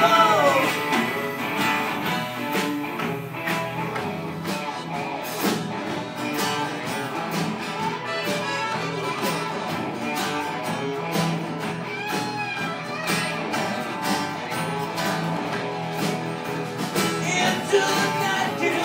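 Live band playing a song on acoustic guitar, electric guitar, accordion and drums, with a steady beat.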